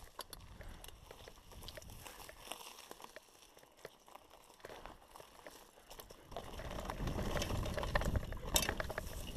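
Mountain bike rolling over a dirt trail, the tyres crackling and crunching over twigs and loose ground with scattered small clicks. About six seconds in it turns to a louder, steady rumble of wind on the microphone and tyre noise as the bike picks up speed on the open track.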